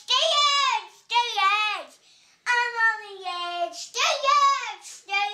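A young child singing or sing-song vocalizing in a high voice, in short phrases with brief pauses between them, the pitch dropping at the end of each phrase.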